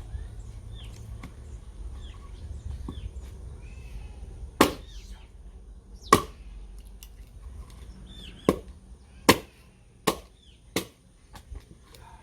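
Axe blows splitting firewood logs: about six sharp, loud strikes spaced roughly a second apart from about four and a half seconds in, followed by a couple of lighter knocks near the end.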